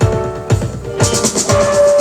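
Dub reggae music: a heavy kick drum steadily on about two beats a second, with a fast shaker or hi-hat pattern coming in about a second in and a sustained note held near the end.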